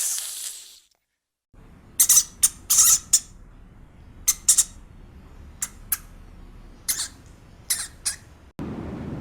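A hiss fades out in the first second. Then, after a brief silence, a bird gives short, harsh squawks in quick clusters, about a dozen over six seconds. Near the end a steady rushing noise cuts in.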